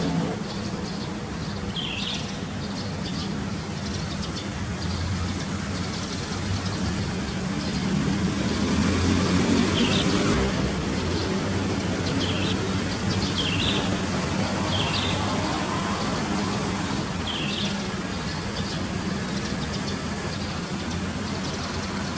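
Birds chirping, about six short separate calls spread through, over a steady low vehicle rumble that swells in the middle.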